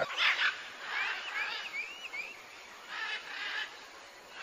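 A quick run of about five short, high chirps, each rising and falling in pitch, from an animal or bird, beginning about a second in.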